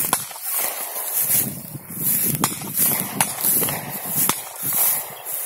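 Rustling and footfalls of someone moving through field vegetation with the recording phone, with a few sharp cracks.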